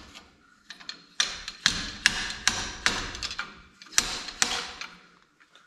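Slide hammer with a seal-puller hook yanking the inner axle seal out of a Dana 44 axle tube. The sliding weight strikes its stop about seven times, roughly two a second with a short pause in between, and each strike is a sharp metallic clack with a brief ring.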